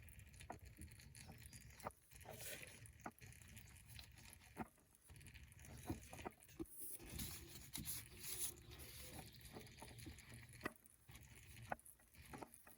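Faint, scattered small clicks and light scraping of a new oil filter being turned onto its threaded mount by hand.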